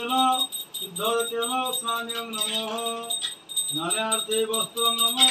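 A man chanting a Sanskrit puja mantra in long, held sung notes, with a small hand bell rung continuously behind the voice.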